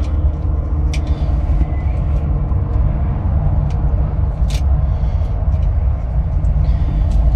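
Steady low rumble with a faint hum, broken by a few light clicks or taps.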